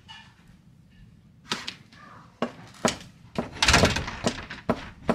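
A series of sharp knocks and thumps, with a louder clattering burst about two thirds of the way through.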